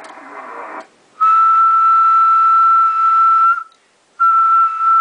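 A person whistling one steady, unwavering note into the microphone of a Drake TR-7 transceiver, held for about two and a half seconds, a short break, then held again. The whistle serves as a test tone to drive the single-sideband transmitter to full output on 20 meters, about 120 watts. Brief receiver hiss comes before the first whistle.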